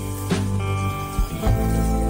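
Background music, with the notes changing about a third of a second in and again about a second and a half in.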